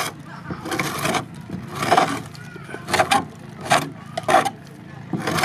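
Steel hand scraper, forged from an old file, scraping along the weathered planks of a wooden boat hull. Short rasping strokes come about once a second, six in all, as old paint and grime are scraped off the hull.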